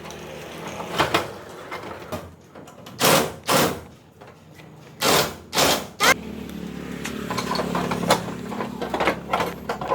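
Repair work with hand tools: several loud, short strokes of knocking or scraping, then a motor running steadily from about six seconds in.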